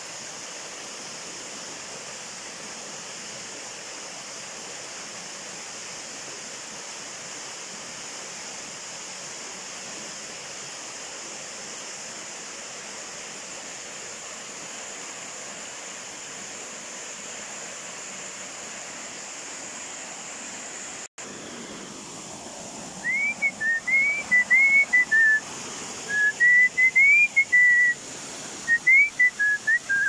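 Steady rush of a waterfall. After a sudden break about two-thirds of the way in, a person whistles close by in short phrases of rising and falling notes, much louder than the water.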